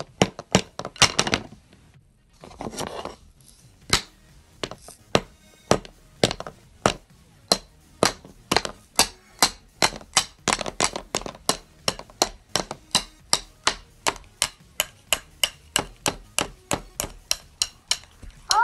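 A rapid, fairly even series of sharp knocks, about three a second, continuing for most of the stretch, with a few irregular knocks and rustling near the start.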